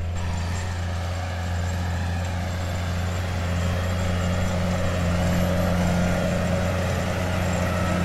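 Tractor engine running steadily, a low even hum that grows slightly louder through the middle, as it pulls a Simba Cultipress cultivator across rough ground.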